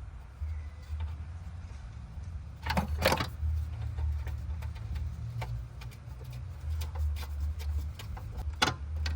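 A few sharp metal clanks and clicks, a cluster about three seconds in and another near the end, as a new engine mount is worked into place in a Nissan Altima's engine bay, over a steady low rumble.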